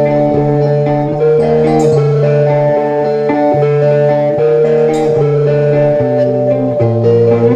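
Live rock band music led by guitars over a steady bass line, with no vocals.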